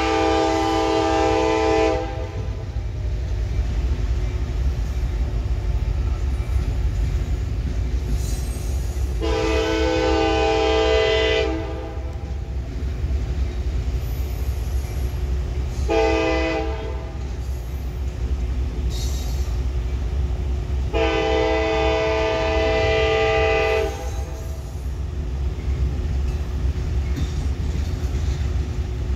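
Freight locomotive air horn sounding the grade-crossing signal: two long blasts, one short and a final long one, the warning of a train approaching a road crossing. A steady low rumble of the train runs beneath.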